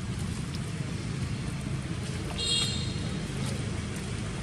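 Steady low rumble of road traffic, with one brief high-pitched squeak about two and a half seconds in.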